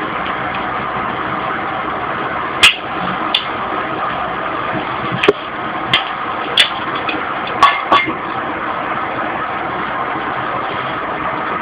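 Homemade copper-coil alcohol jet stove burning with a steady rushing noise under a pan of frying eggs and bacon. A handful of sharp clicks and pops come through it, the loudest a few seconds in and a close pair near the end.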